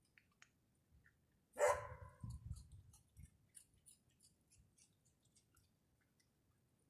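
A raccoon eating popcorn on a wooden table: faint crunching ticks of chewing. About one and a half seconds in comes a single short, sharp animal call, the loudest sound, followed by a few dull thumps on the wood.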